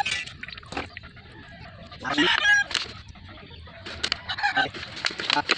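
Broiler chickens clucking and squawking in short calls, the loudest a little after two seconds in.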